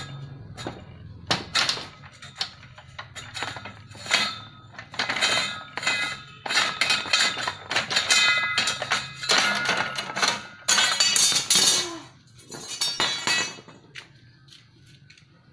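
Homemade hand-cranked sheet-metal rolling machine being worked by its crank wheel: irregular metallic clanks, knocks and ringing scrapes from the dry, stiff rollers and chain drive. The clanking stops a little before the end.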